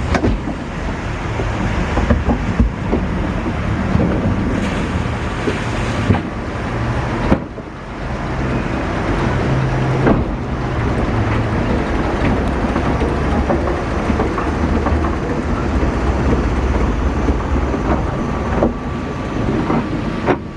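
Boat on a log-flume water ride rumbling along, with rushing water and wind on the microphone; the noise dips briefly about a third of the way through.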